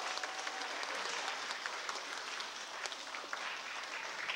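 Audience applauding: many hands clapping at once, a dense, steady patter.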